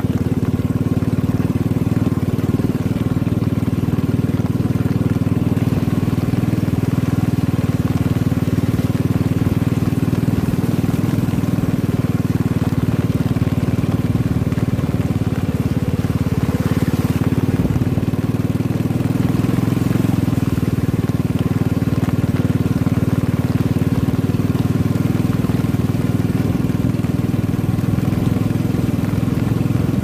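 Motorcycle engine running steadily, its pitch holding level with no revving.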